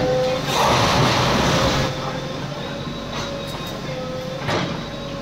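A JCB backhoe loader's engine runs steadily at a demolition, with a rush of crashing debris from about half a second in, lasting over a second, and a few sharp knocks near the end.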